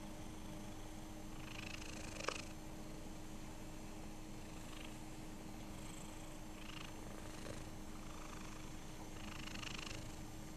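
Black-and-white cat purring steadily while being stroked, with a brief click about two seconds in.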